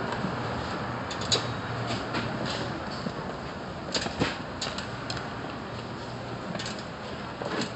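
Wire shopping cart being pushed along a tiled supermarket floor: a steady rolling noise with a few sharp clicks and rattles.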